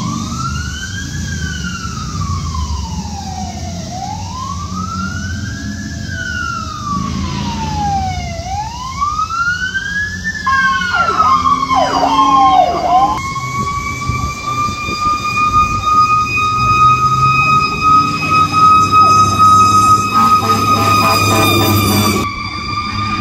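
Fire department emergency vehicle sirens: an electronic wail rising and falling slowly, about every four seconds, then a burst of quick falling sweeps and a long steady high tone that rises slowly and drops off shortly before the end. Engine and road rumble from the passing apparatus lies underneath.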